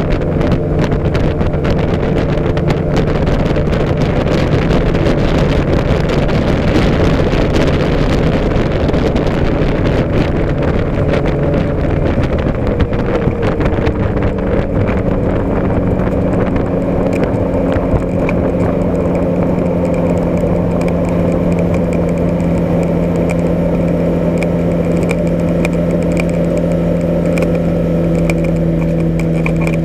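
Light aircraft engine and propeller running steadily at low power during the landing rollout, with wind noise that fades as the plane slows. About halfway through, the engine note shifts and settles at a steady lower drone.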